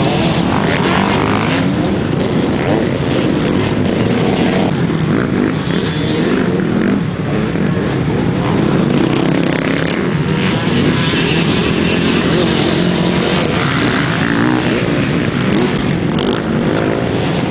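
Several off-road motorcycles running together, a steady, loud mass of engine and exhaust noise from a pack of enduro bikes.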